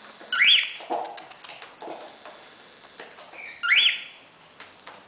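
A cockatiel giving two short rising whistled calls, about three seconds apart.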